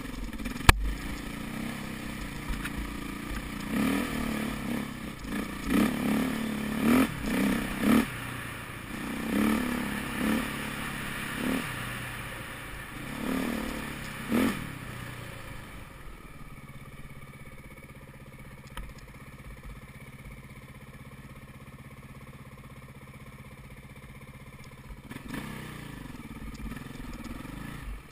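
2008 KTM 450 EXC-R's single-cylinder four-stroke engine being ridden off-road, revved in a string of short throttle bursts through the first half. It then runs low and steady for about ten seconds and picks up again near the end. A single sharp knock sounds about a second in.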